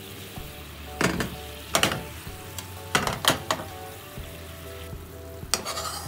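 Teriyaki sauce sizzling and bubbling in a frying pan around yellowtail fillets, with several louder surges of sizzle. Near the end a spoon scrapes through the sauce in the pan.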